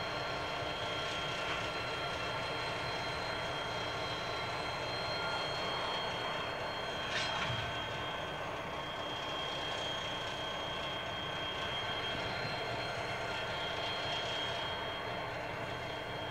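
Pacific National 81 class diesel-electric locomotives idling and creeping slowly, with a steady high whine over the engine noise. About seven seconds in comes one short, sharp clank as the locomotive buffs up against the grain hopper to couple.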